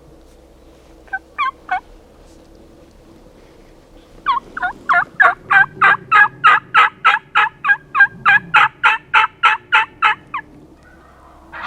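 Turkey calling: three short notes, then a long, even run of clipped notes at about four a second.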